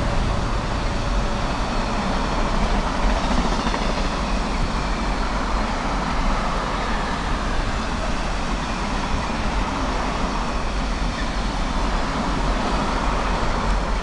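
Container wagons of an intermodal freight train rolling past at speed, a steady rush of wheels on rail.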